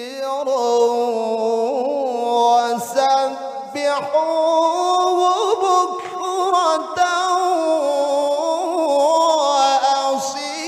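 A male Qur'an reciter (qari) chanting a long, held, melismatic phrase of tilawah into a microphone, his voice wavering through fine ornaments with only a few brief breaths.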